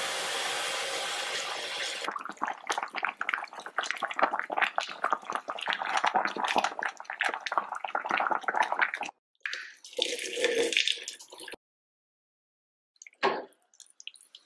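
Tap water running onto spinach leaves in a bowl for about two seconds, then water boiling in a pot with spinach blanching in it: a crackling bubbling of many small pops. Near the end, after a pause, a single short knock.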